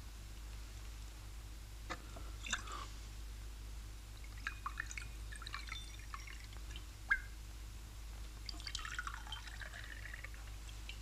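Faint clinks of glass and a short trickle of cognac poured from a bottle into small glasses, over a low steady hum.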